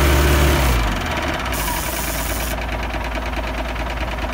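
Engine of an off-road 4x4 stuck in deep mud, running hard and then dropping back to idle just under a second in, carrying on steadily at idle.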